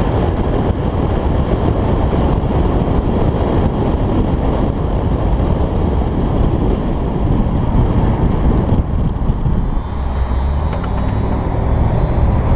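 Jaguar XKR's supercharged 5.0-litre V8 exhaust while driving, with fuse 19 pulled to hold the active exhaust valves open, under heavy wind and road rush. About three seconds from the end the engine note rises and falls as the revs change.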